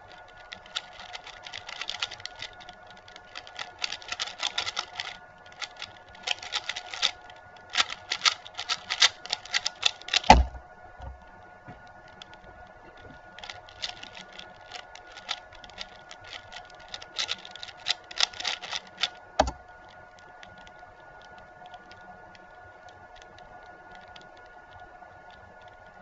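Stickerless QiYi Valk 3 speedcube being turned fast, its plastic layers clicking and clattering in quick runs like typing. A solid thump about ten seconds in and another a little before two-thirds through, as the cube is set down; after the second, the turning stops and only a faint steady hum remains.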